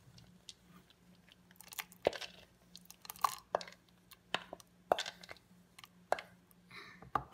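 Wooden spatula scraping and tapping against a plastic mixing bowl as cream mixture and chocolate chips are scraped into an ice cream ball's metal chamber: short, irregular scrapes and knocks, about a dozen in all.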